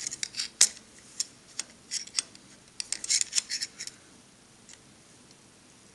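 Steel digital caliper and metal parts handled against a steel rule: a quick series of light metallic clicks and scrapes that stops about four seconds in.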